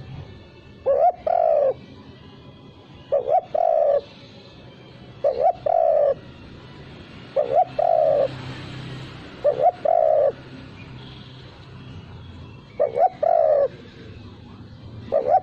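Spotted dove (tekukur) cooing its song over and over, seven phrases about two seconds apart, each two quick notes and then a longer coo. The phrase has no closing 'kuk' note.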